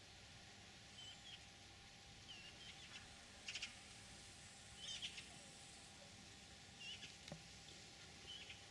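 Faint, short chirping calls of a small bird, about six in all, spaced a second or two apart, over a quiet steady hiss.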